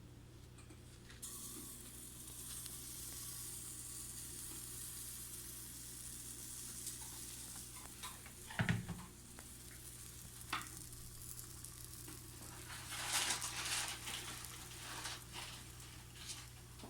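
Pancake batter sizzling in a hot frying pan, the hiss starting about a second in. A thump near the middle, a few light knocks, and a louder burst of scraping later on.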